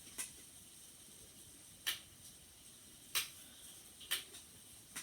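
Five short, sharp clicks at irregular spacing over faint room tone.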